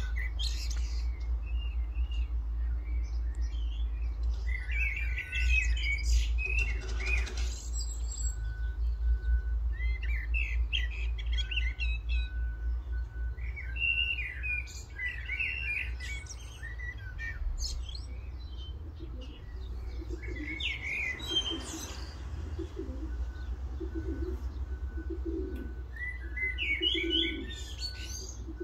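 Small wild songbirds chirping in repeated short flurries, over a steady low wind rumble on the microphone. In the second half, racing pigeons give low, short coos.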